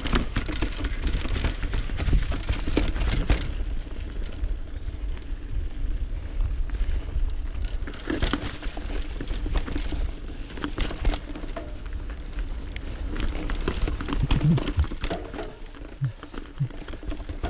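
Mountain bike riding down a rough forest singletrack: knobby tyres rolling and crunching over dirt, dry leaves and roots, with the bike rattling and knocking over bumps and wind rumbling on the microphone. The sharpest knocks come at the start, about three seconds in and about eight seconds in.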